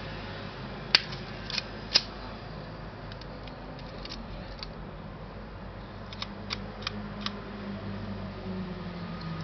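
Small sharp mechanical clicks from a Yashica Electro 35 CC rangefinder camera being handled: three louder clicks in the first two seconds, then runs of fainter clicks, over a low steady hum.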